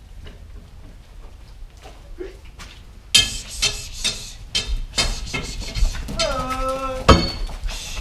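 Clinking and knocking of metal, starting about three seconds in and going on in a quick irregular run, with a single short cow moo about six seconds in.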